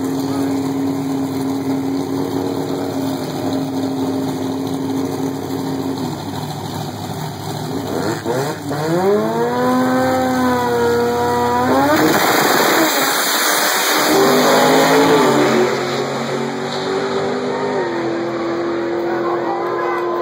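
Drag-racing cars idling at the start line, then an engine revving in rising sweeps for a few seconds. About twelve seconds in comes a loud full-throttle launch, the engine noise easing as the cars pull away down the strip.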